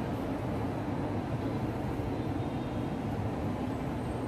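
Steady low rumble of a running vehicle engine, even throughout with no distinct events.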